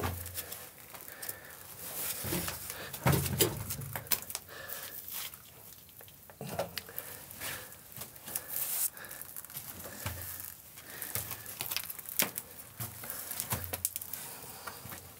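Footsteps crunching and scuffing on loose rock and gravel, irregular steps with sharp scrapes and low thuds every second or two.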